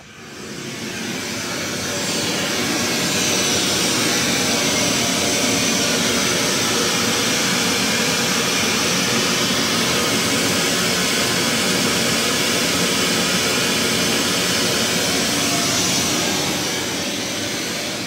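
Steady hiss of pink noise from an omnidirectional loudspeaker, the test signal for a sound insulation measurement, heard loud through the room's open door. It swells in over the first two seconds as the door opens and begins to fade near the end as the door closes.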